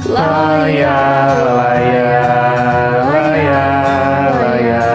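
A voice singing a wordless "laia" vocalise in long held notes that waver and slide in pitch, over the song's acoustic guitar backing track. It comes in loudly right at the start.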